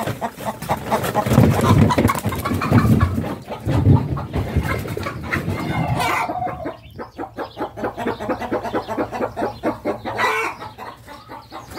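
Chickens clucking, a dense run of short, rapid clucks with a couple of longer calls about six and ten seconds in.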